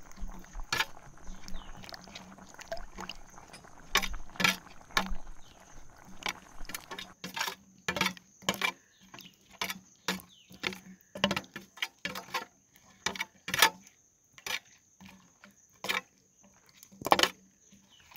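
Wooden spatula scraping and knocking against a non-stick kadai while stirring a thick paneer gravy, in irregular strokes about once a second. A faint sizzle of the gravy underlies the first half.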